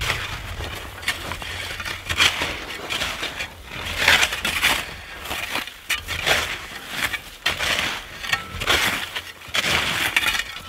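Two snow shovels digging into piled snow: a run of irregular crunching and scraping strokes as the blades cut and scoop.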